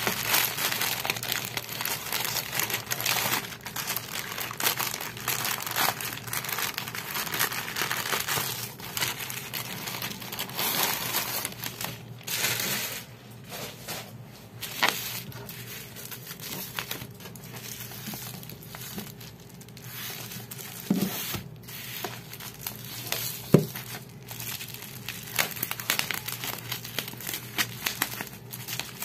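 Thin plastic courier mailer crinkling and rustling as it is handled and cut open with scissors, with plastic bubble wrap crinkling near the end. Two sharp clicks stand out about two-thirds of the way through.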